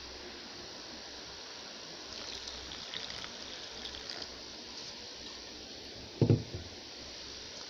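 Water poured into a well in a bowl of roti flour, a light trickle for about two seconds. Near the end comes a single dull thump.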